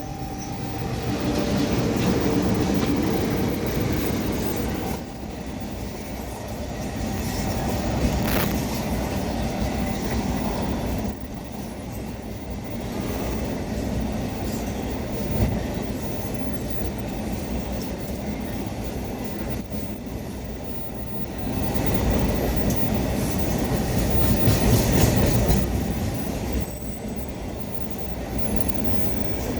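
Train running along the track, its wheels on the rails making a steady rumble that swells louder twice and fades between, with single sharp clanks about 8 and 15 seconds in.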